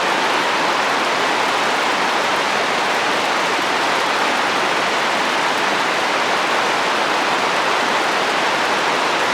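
Steady heavy rain falling on a roof in wind, an even hiss with no breaks.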